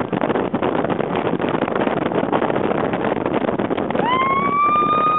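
Steady wind and road noise from a moving car, with wind buffeting the microphone. About four seconds in, a high, held, voice-like tone begins and stays level to the end.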